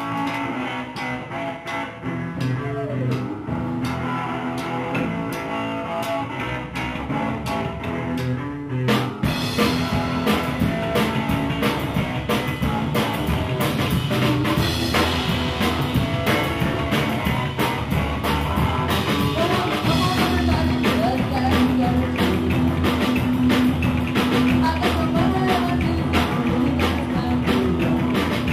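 Live rock-and-roll band playing, with upright double bass, guitar and drum kit. The band comes in fuller and louder about nine seconds in, with a steady drum beat from there on.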